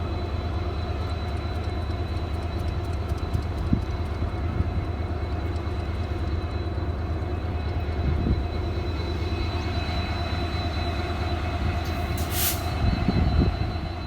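Indian passenger train running: a steady rail rumble with occasional knocks and a brief hiss near the end.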